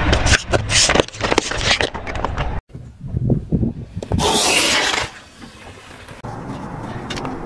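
Car tyre rolling over a row of plastic Play-Doh tubs, crushing them with a rapid series of cracks and pops. Then a tyre slowly squashes a gel-filled squishy ball, with low thumps and a burst of hiss lasting under a second about four seconds in.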